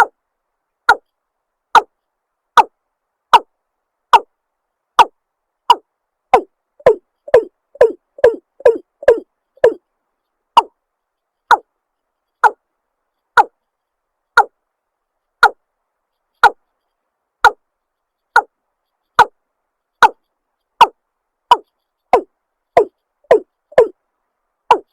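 Watercock calling: a series of short, sharp notes, each dropping in pitch, repeated about once a second, quickening into a rapid run of notes around six to ten seconds in before returning to the slower pace.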